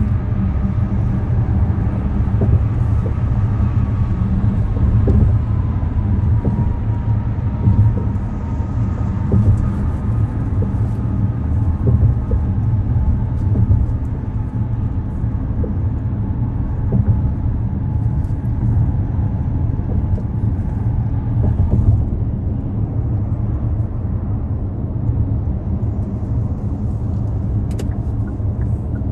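Steady low rumble of a vehicle on the move, with a faint whine that slowly falls in pitch over the first ten seconds or so.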